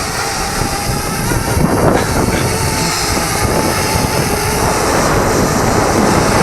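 Strong wind buffeting the microphone in gusts, with a steady propeller whir from a Parrot Bebop 2 quadcopter holding against the wind.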